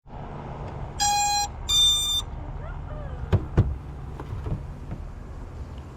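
Two short electronic beeps, the second higher-pitched, then two sharp clicks, over a steady low hum.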